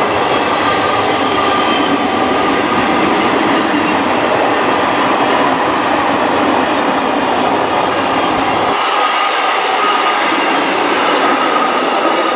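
Freight train of empty flat wagons rolling past at speed, a steady loud rush of wheels on the rails. The deep rumble drops out about nine seconds in.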